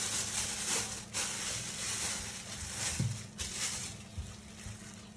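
Clear plastic bag crinkling and rustling as hands peel it open and pull a slab of raw beef out, with a dull knock about three seconds in. The rustling dies down in the last second or so.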